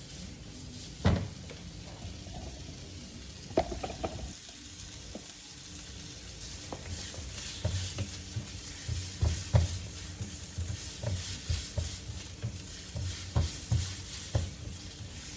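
Ground beef sizzling in hot oil in a pan as it is stir-fried, the stirring utensil scraping and knocking against the pan several times a second in the second half. A single sharp knock about a second in.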